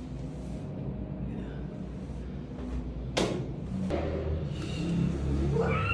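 A single sharp thump about three seconds in, with a weaker knock about a second later, over low background music.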